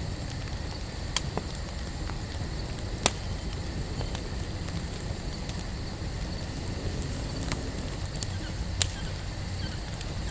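Wood campfire burning: a steady low rush of flames with a few sharp crackles and pops from the burning wood, the loudest about three seconds in.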